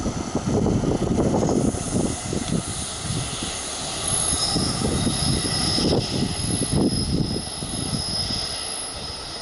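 NJ Transit ALP-46A electric locomotive pushing a commuter train away along the track: a low, uneven rumble of the train running, with a high steady whine that comes up about four seconds in.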